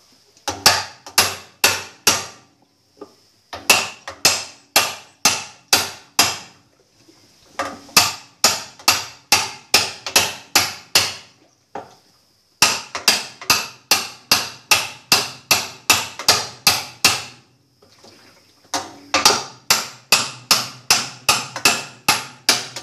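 Small sledgehammer hitting hard at the centre hub in the bottom of a GE 15 kg washing machine's drum. The blows come in five quick runs, about three a second, with short pauses between. It is driving a loose hub part tight so that it no longer works loose and lets the tub bang during the spin.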